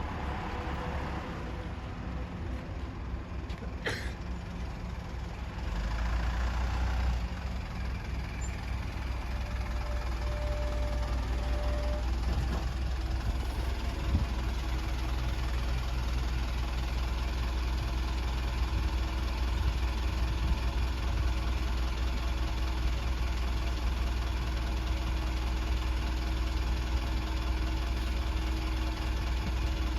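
The DMV's engine running steadily, heard from on board. It grows louder about six seconds in, with a sharp click about four seconds in.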